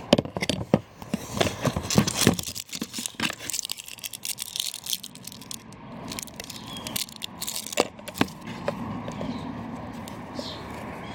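Parts of a hand reel lawn mower being handled and worked on: irregular sharp clicks and knocks with scraping, thickest in the first few seconds and thinning out after. A bird chirps faintly near the end.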